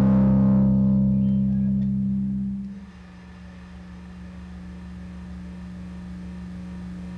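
A band's last sustained chord on distorted electric guitar and bass, ringing and fading, then cut off about three seconds in. A steady low hum remains, slowly getting louder.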